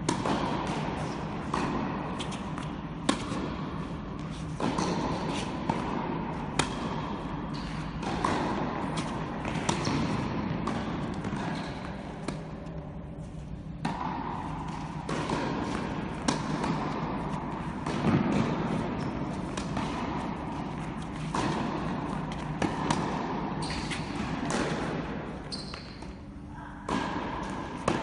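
Tennis ball struck by a racket and bouncing on an indoor hard court: sharp knocks every second or two, over a steady low hum.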